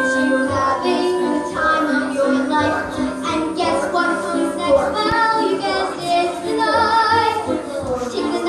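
Young voices singing a musical-theatre number with instrumental accompaniment.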